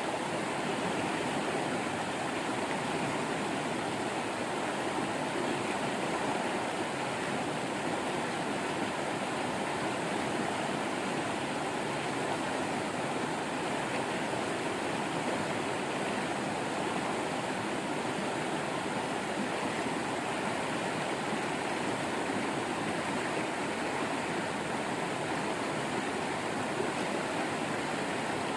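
Waterfall flowing: a steady, even rush of falling water with no change.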